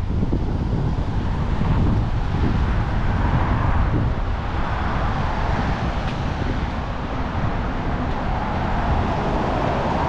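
Road traffic on a busy street, cars swelling past about twice, over a steady low rumble of wind buffeting the microphone.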